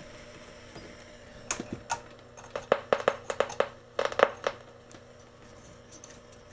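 Irregular crackles and sharp pops, about a dozen in three seconds, from the speaker of a 1940s BC-348 military aircraft tube receiver, over a faint steady hum. It is being tuned on a band where the local oscillator is thought not to be working.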